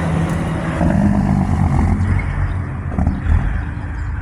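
A motor vehicle's engine running nearby: a steady low rumble.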